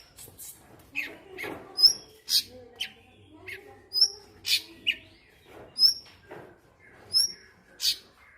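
Cucak cungkok song: loud, sharp chirps repeated over and over. Each phrase is a short high note topped by a tinkle of higher notes, coming about every second and a half, with lower down-slurred notes and a few very loud sharp notes in between.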